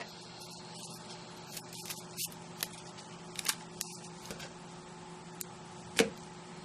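Scattered light clicks and taps of small papercraft supplies being handled on a work surface, with one louder tap about six seconds in, over a faint steady hum.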